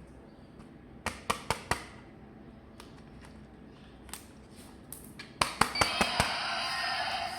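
Sharp clicks and taps of hard plastic toy parts being handled, four quick ones about a second in. About five and a half seconds in, a battery toy's electronic sound effect switches on, a steady buzzy noise with fixed tones, with more clicks over it.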